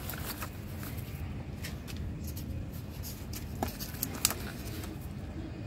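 Small pots being handled and set into the soil of a container: faint rustling and light clicks, with two sharper clicks about three and a half and four seconds in, over a low steady rumble.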